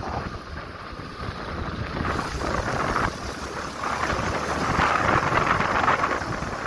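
Wind rushing over the microphone of a moving motorcycle, with a low rumble underneath. It grows louder about four seconds in.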